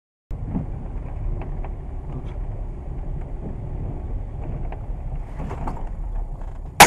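Steady low rumble of wind on the microphone at an open car window, then a single loud shotgun shot near the end.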